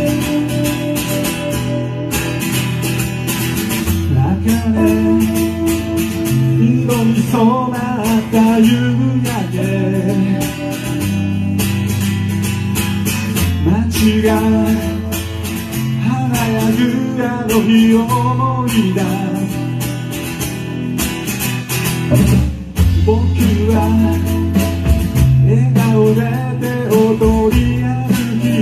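A band playing a song live: a man singing over a strummed acoustic guitar, with electric guitar, bass notes and drums. The singing comes in about four seconds in.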